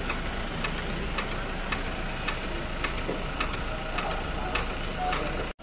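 Steady ticking, close to two clicks a second, over the low hum of an engine idling.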